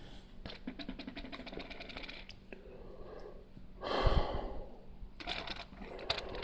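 Small plastic clicks and rattles of Lego bricks being handled, with a short louder rustle about four seconds in.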